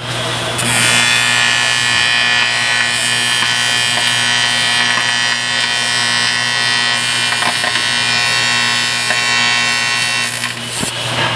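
TIG welding arc with high-frequency start, running on an aluminium Ford Triton cylinder head: a steady electrical buzz with a low hum and a bright hiss above. It starts about half a second in and eases near the end with a short break.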